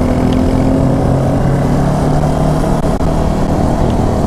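Kawasaki Ninja 650 parallel-twin engine running under way, its note holding fairly steady with small shifts in pitch, over wind noise on the microphone.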